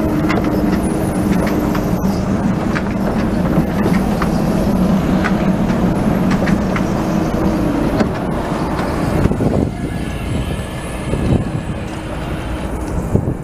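Translohr rubber-tyred tram passing at close range, its electric drive humming steadily over the rolling noise of the tyres, with scattered light ticks. It becomes quieter and more uneven in the last few seconds as it moves away.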